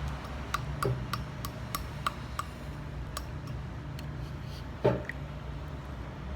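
Ketchup bottle tapped with a run of light, even taps, about three a second, to get stuck ketchup to come out, then one heavier thump about five seconds in.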